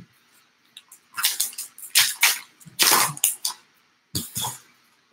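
Trading card pack wrapper being crinkled and torn open by hand, in four bursts of rustling about a second apart.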